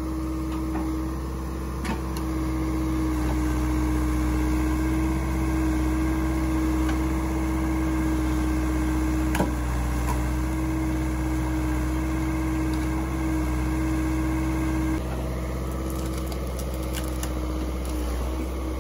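Ford 555C backhoe loader's diesel engine running steadily as the backhoe arm works, lifting a log and digging out dirt, with a steady hum over the engine drone. A couple of sharp knocks, and the engine eases slightly about fifteen seconds in.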